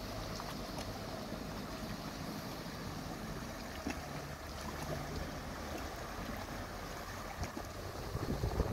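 Motorboat engine running with a steady low hum over the wash of river water. Near the end, wind starts buffeting the microphone.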